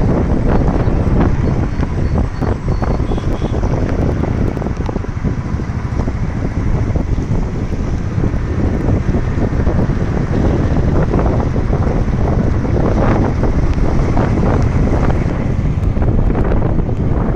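Wind buffeting the microphone of a camera carried on a moving motorcycle: a loud, continuous rush that flutters in gusts, mixed with the bike's road noise.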